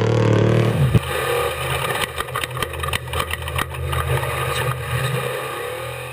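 Drag racing motorcycle engine running steadily at a low, idle-like speed, with a sharp knock about a second in and scattered clicks over the next few seconds.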